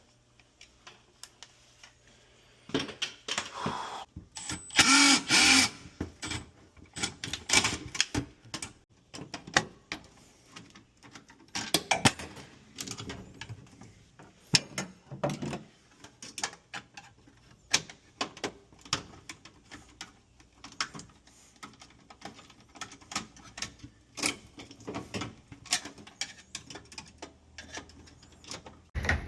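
Irregular clicks and knocks of hand work on equipment and tools, with a brief louder scraping noise about five seconds in.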